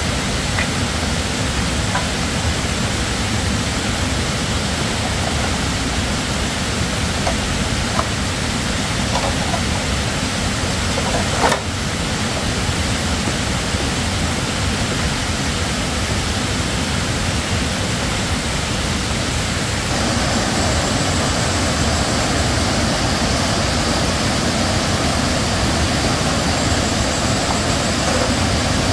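Steady rushing of a rocky forest stream, a little louder and brighter about two-thirds of the way through, with one sharp knock near the middle.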